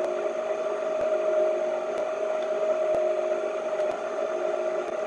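Aucma 6.5-quart, 660 W tilt-head stand mixer running steadily as it mixes a thick batter, its motor giving a steady whine with a faint click about once a second.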